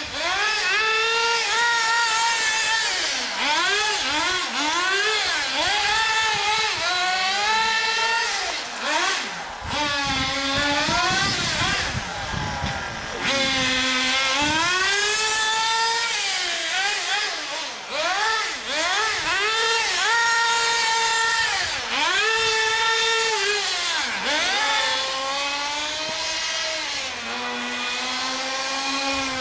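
Nitro-powered HPI MT2 radio-controlled monster trucks running on a track, their small two-stroke glow engines revving up and dropping back over and over as the throttle is worked. At times two engines are heard at once at different pitches.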